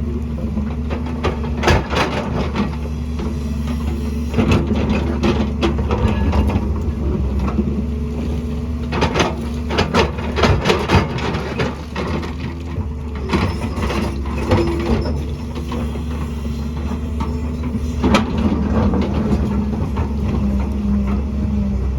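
Excavator's diesel engine running steadily, with scattered sharp knocks and clatters of rock and the steel bucket as it digs and moves material.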